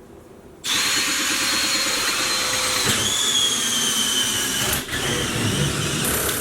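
Electric power drill running under load with a steady high whine; the whine drops in pitch about three seconds in, and the drill eases off briefly near five seconds.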